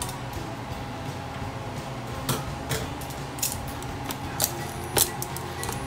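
Metal kitchen utensils clicking and tapping against a plastic bowl of soft roasted eggplant. The clicks are sharp and irregular, a handful of them in the second half.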